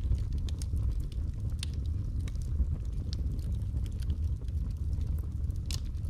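Fire burning in a fireplace: a steady low rumble of flames with scattered crackles and pops, one sharper pop near the end.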